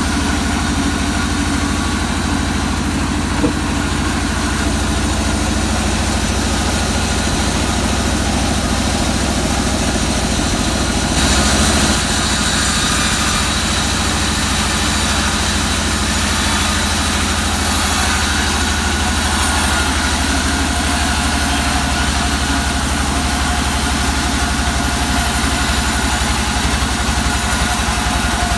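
Band sawmill running steadily, its motor humming with an even low pulse. From about eleven seconds in a brighter hiss joins it as the blade cuts through the waru log.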